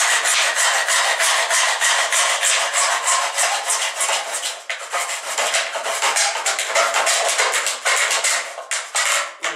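Hacksaw blade sawing through a plastic PVC central-vacuum pipe in a miter box, with quick, even back-and-forth rasping strokes.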